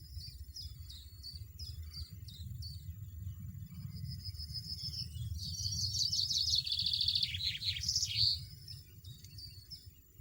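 European goldfinch singing: a run of quick down-slurred twittering notes, then a louder rapid trill about six to eight seconds in, over a steady low rumble.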